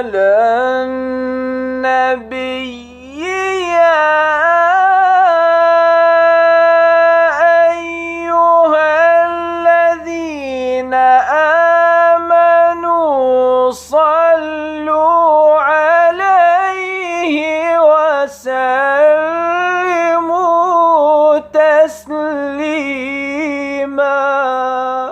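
Solo male voice chanting a Quranic verse in maqam style, blending maqam Kurd with Bayat. He sings long held notes ornamented with wavering runs, with short pauses for breath, and stops abruptly at the end.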